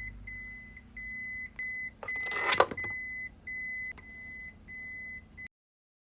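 Electronic beeper sounding a high tone over and over, about nine beeps of uneven length, over a low steady hum, with a short clatter midway.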